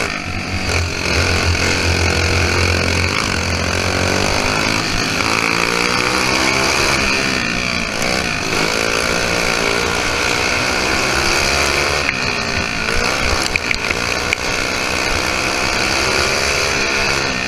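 Modified Briggs & Stratton flathead single-cylinder go-kart engine running hard, heard from onboard the kart. Its pitch rises and falls as the throttle opens and lifts through the corners. A few sharp knocks come about two-thirds of the way through.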